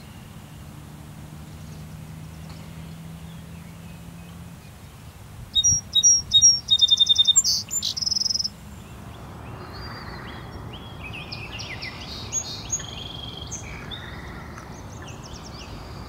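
Song sparrow singing one loud song: a few clear opening notes, a fast trill and a buzzy ending. Softer songs of other birds follow, with repeated down-slurred notes.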